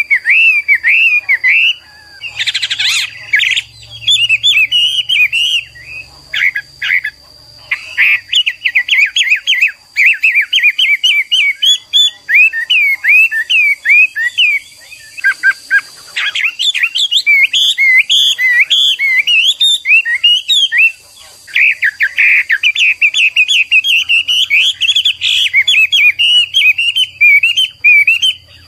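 Chinese hwamei (Garrulax canorus) singing a long, rapid, varied song of clear whistled notes, pausing briefly a few times.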